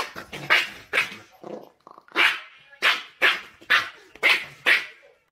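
A domestic animal giving short, sharp, bark-like cries over and over, about ten in all at roughly two a second.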